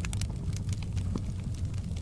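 Wood fire burning in a fireplace: a steady low rumble with frequent sharp crackles and pops.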